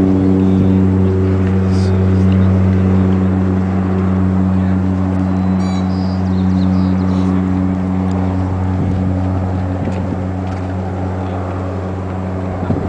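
Seaplane's propeller engine running at take-off power, a steady drone that holds its pitch and slowly grows fainter.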